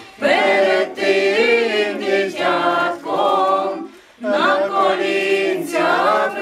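A small mixed choir of women, men and children singing a Ukrainian Christmas carol a cappella, with a short pause for breath about four seconds in.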